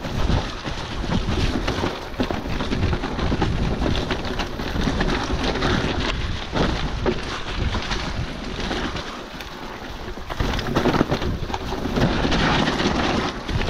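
Wind buffeting the microphone over the clatter and rattle of a mountain e-bike riding a wet, rough trail, with irregular knocks from the bumps.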